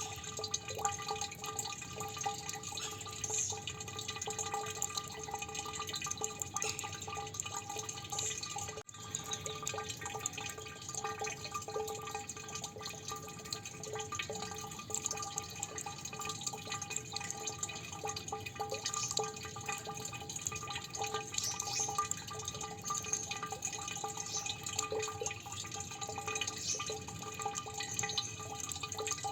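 Water dripping steadily, many drops falling in quick, irregular succession with a ringing, resonant tone, cut by a split-second dropout about nine seconds in.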